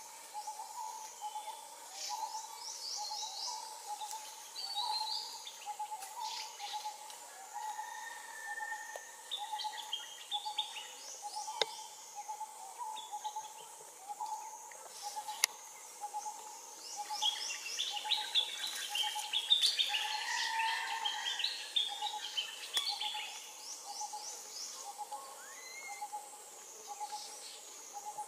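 Birds calling in the trees: one steady note repeated about twice a second, with bursts of quick high-pitched chirps and trills over it, busiest a little past the middle.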